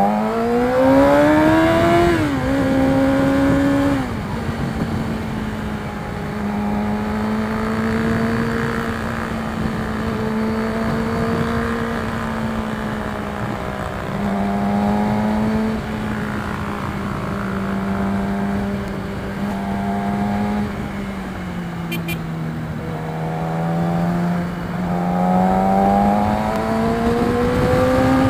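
Yamaha R6's 600cc inline-four engine through an Akrapovic exhaust, revving up hard in the opening two seconds and dropping in pitch at the upshifts around two and four seconds in. It then holds a fairly steady cruising note, dips lower for a few seconds past the middle, and climbs again near the end.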